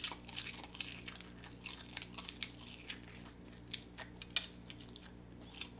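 A person chewing food close to the microphone, with scattered crisp crunches and wet mouth clicks over a faint steady hum.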